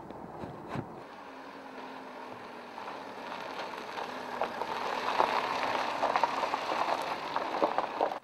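Renault Trafic minibus driving over a gravel track, tyres crunching and crackling on the loose stones over a low engine hum. It grows louder as the van comes closer, is loudest in the last few seconds, and cuts off suddenly at the end.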